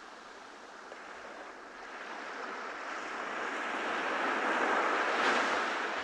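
Ocean waves washing onto a beach: the surf swells over the first few seconds, is loudest about five seconds in as a wave breaks, then begins to ease.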